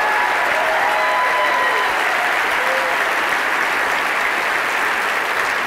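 A large audience applauding steadily, with a few voices calling out over the clapping in the first two seconds.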